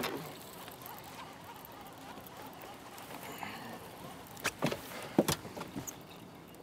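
Faint steady background hiss on open water, broken a little past the middle by four sharp knocks within about a second.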